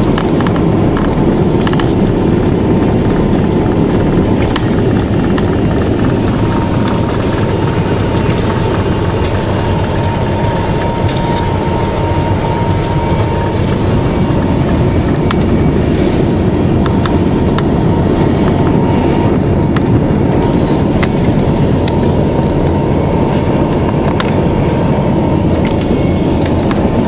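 Cabin noise of a Lisunov Li-2 on the ground after landing: its Shvetsov ASh-62IR nine-cylinder radial engines running at low power in a steady drone, with scattered clicks and rattles throughout.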